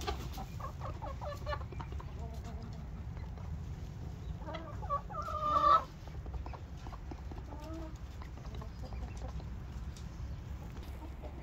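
Chickens clucking softly in a coop, with one loud drawn-out chicken call about five seconds in that grows louder and then breaks off sharply.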